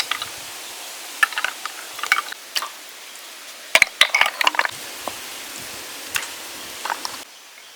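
Utensils clinking and scraping against cookware in irregular clusters of sharp clatter, over a steady hiss that drops away abruptly near the end.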